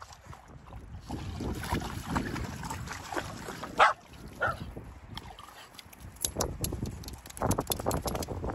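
Dogs moving about at the water's edge, with water splashing and lapping and one short loud bark about four seconds in.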